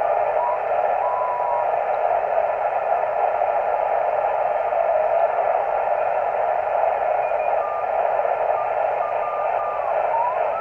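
Yaesu FT-857D transceiver's receiver audio on the 40-metre band with the DSP noise reduction switched off: a steady rush of band noise. Brief Morse carrier whistles come and go and slide in pitch as the dial is tuned across them.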